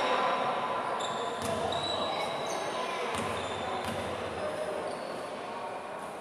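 Basketball bouncing on a hardwood court, with a few short high squeaks of players' shoes, in the echo of a large sports hall.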